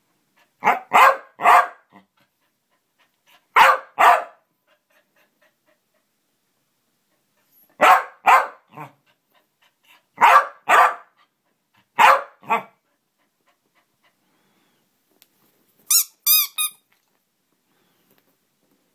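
Welsh corgi barking in quick pairs and triplets, about a dozen sharp barks with short pauses between the groups, excited at a rubber duck held out to him. Near the end a small rubber squeaky duck is squeezed, giving three short high squeaks.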